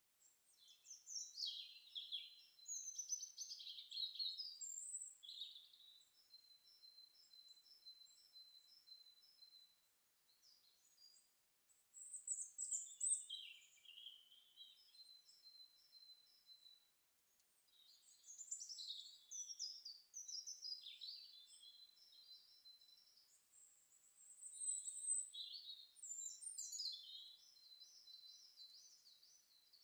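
Garden songbirds singing faintly: chirps, trills and quick strings of repeated high notes in overlapping bursts, with a couple of short lulls.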